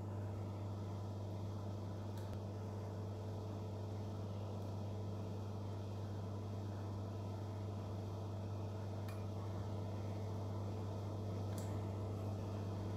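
Steady low electrical hum in a small room, with a few faint clicks of a metal spoon touching a glass baking dish as white sauce is spread.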